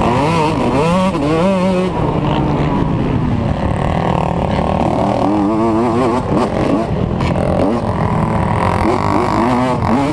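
Motocross dirt bike engine running hard, its pitch rising and falling again and again as the throttle is worked over the rough track, with wind rushing over the helmet-mounted microphone.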